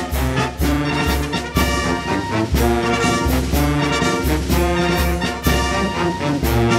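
Music led by brass instruments, with a steady beat and a pulsing bass line.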